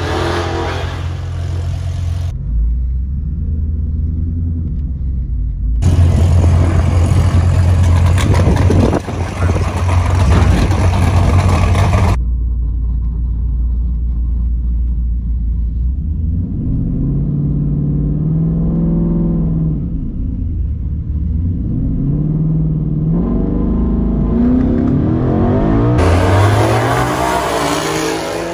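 Twin-turbocharged 2019 Ford Mustang GT's 5.0 V8 at full throttle in a drag-strip burnout, rear tyres spinning. In between, the engine idles with a low rumble inside the cabin. From about 16 s it revs up and down while staging, and near the end it runs hard down the strip with a rising pitch.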